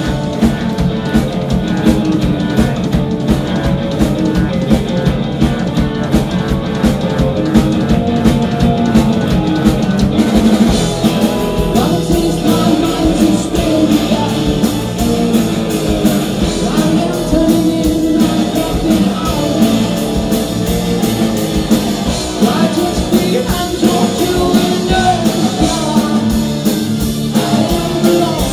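Live hard rock band playing: a female lead vocal over electric guitars, electric bass and a drum kit with busy cymbals. The drumming changes pattern about ten seconds in.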